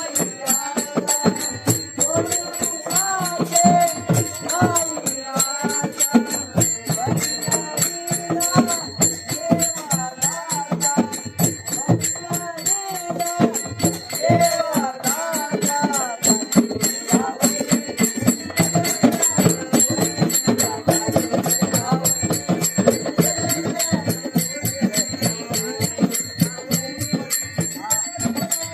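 Traditional Marathi folk music for the Shimga festival: a wavering melody over a fast, steady beat of drum strokes and jingling metal percussion.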